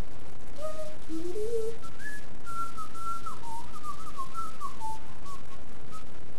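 A person whistling with the lips: a short wandering tune with slides between notes, after a few short lower notes in the first second and a half.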